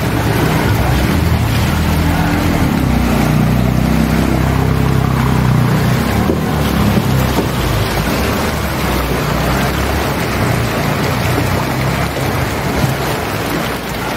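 A motorcycle engine running as the bike rides through floodwater, over a steady rush of water and noise. The engine is strongest for the first several seconds, then fades about halfway through, leaving the rush of water.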